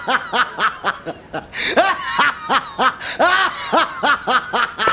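A man laughing heartily: a long, unbroken run of loud 'ha-ha-ha' bursts at about three to four a second.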